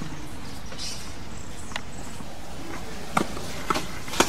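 A tennis ball knocking sharply a few times, about half a second apart, with the loudest knock near the end, over steady outdoor background noise.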